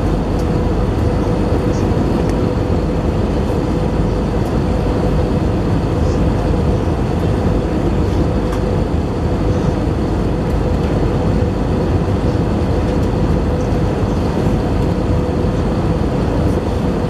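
Airbus A319 cabin noise at a window seat beside its CFM56 engine in flight: a loud, steady rush of engine and airflow with a steady hum tone running through it.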